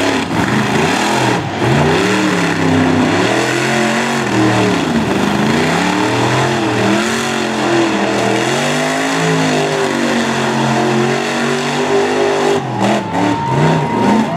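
Monster truck engine revving hard while the truck spins donuts in dirt, its pitch rising and falling over and over, about once a second.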